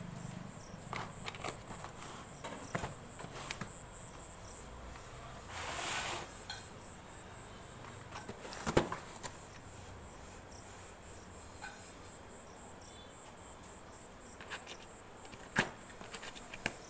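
Scattered rustles and sharp clicks of a cat tearing at a plastic cat-food packet, with a brief crinkle about six seconds in and louder clicks near nine seconds and near the end. A high, steady insect trill runs behind.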